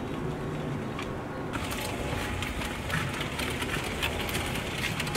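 Powered wheelchair's electric drive motors running steadily as it rolls along a paved path, with frequent small clicks and rattles starting about a second and a half in.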